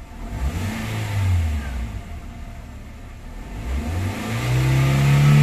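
2016 Toyota Avanza's four-cylinder engine revved twice from idle: a short blip, then a longer, louder rev that rises and falls back. It is revved during a misfire check after the fault codes were cleared, and no misfires register.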